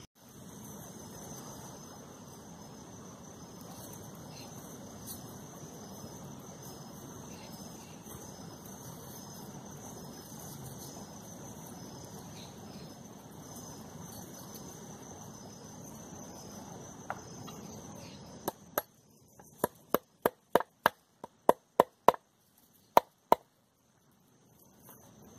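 Steady insect chirring for most of the time. Near the end, about a dozen sharp knocks in quick, uneven succession: hammer blows driving a fence-wire staple into a wooden log to fix an orchid seedling to it.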